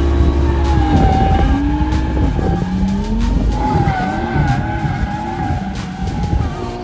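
Car drifting: the tyres squeal in a wavering whine as the car slides, while the engine revs rise and fall under throttle.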